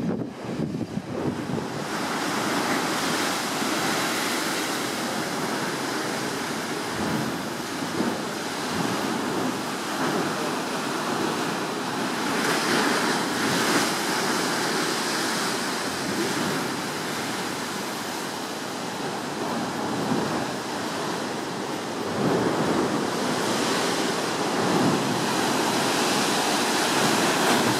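Ocean surf breaking and surging into rock chasms below, a continuous rushing wash that swells louder about midway and again near the end, with wind gusting across the microphone.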